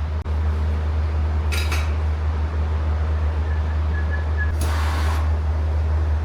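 Steady low roar of a glassblowing studio's furnace and burner blowers, with a few short bursts of hiss on top, about two seconds apart.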